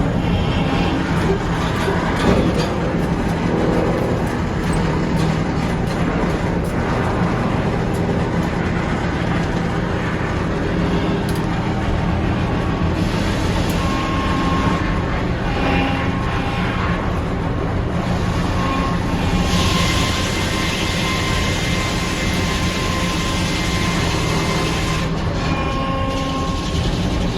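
Sawmill running steadily with a constant engine hum, the saw sawing red oak, with a stretch of louder hiss for several seconds about two-thirds of the way through.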